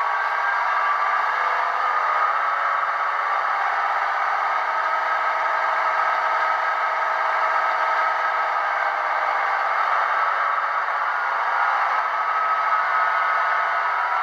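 Tsunami 2 sound decoder in an HO scale SD70ACe model playing its EMD diesel prime mover running steadily at full throttle, notch 8, through the model's small speaker, which gives a thin sound with no deep bass.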